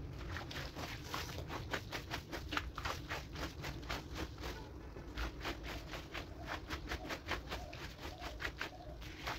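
Wet rug being washed: a quick run of short wet slaps and scrapes, several a second, with a brief pause about halfway through, over a low rumble.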